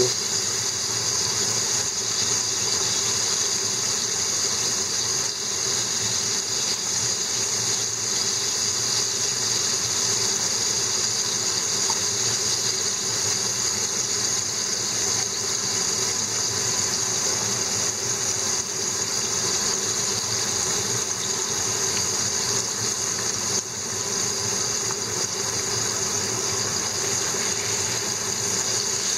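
Opened horse mackerel deep-frying in a pan of hot oil with ginger and garlic: a steady, even sizzle of bubbling oil.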